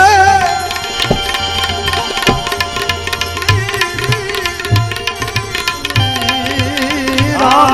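Instrumental passage of a Gujarati devotional bhajan: tabla keeping a rhythm under steady accompanying tones. A held, wavering sung note trails off just after the start, and a singer comes back in near the end.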